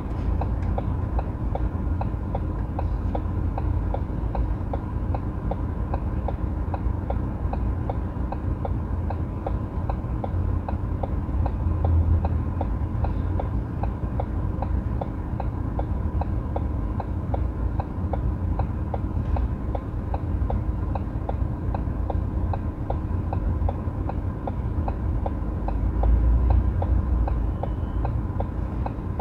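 Car indicator ticking steadily inside the cabin, an even run of clicks over a low engine rumble.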